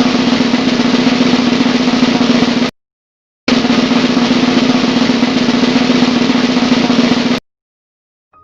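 A snare drum roll, played as a sound effect. It stops abruptly about two and a half seconds in, and after a short silence a second roll starts and cuts off abruptly near the end.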